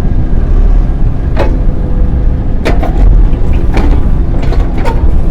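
Excavator engine running steadily under load while its bucket breaks up a concrete slab, with about half a dozen sharp cracks and knocks of concrete and steel striking. A short squeal starts about a second and a half in.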